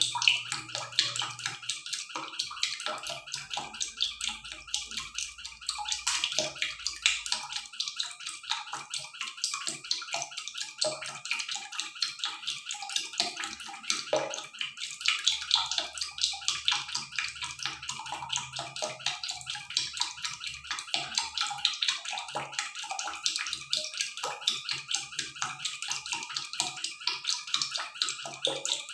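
A steady hissing crackle made of dense, rapid ticks, mostly high-pitched, like running water or sizzling.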